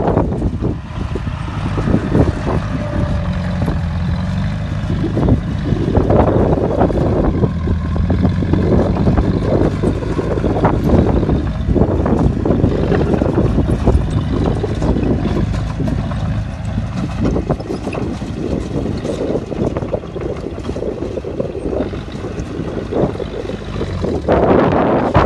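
Bulldozer's diesel engine running under load while pushing dirt, with a low steady drone and many irregular surges of noise over it.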